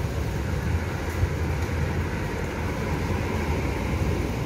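Steady low rumble of background machinery, a continuous hum with a little hiss above it and no distinct knocks or changes.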